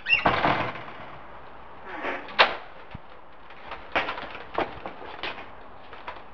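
A door swinging open with a brief squeak and a rushing swish, followed by a few separate sharp knocks and clicks.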